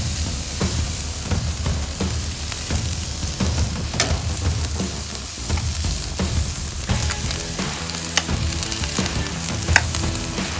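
Steaks sizzling on a grill: a steady frying hiss with a few sharp pops.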